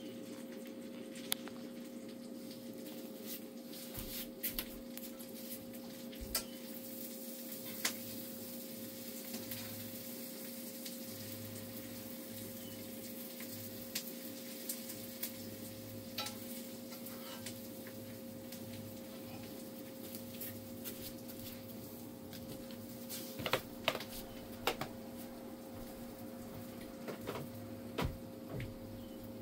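Steady low electrical-sounding hum with a faint hiss, broken by scattered faint clicks and taps, a small cluster of them about two-thirds of the way through.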